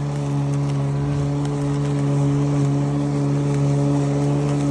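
Sun Joe MJ401C-XR cordless electric lawn mower running smoothly, its motor and blade giving a steady, even hum.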